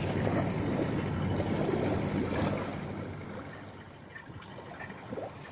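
Wind on the microphone and choppy harbour water lapping, over a steady low hum. It dies down after about three seconds.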